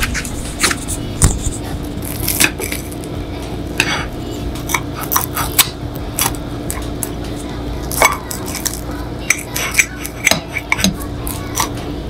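Knife sawing through a toasted grilled cheese sandwich on a ceramic plate: a string of short, crisp crunches from the crust, with the blade clicking and scraping against the plate.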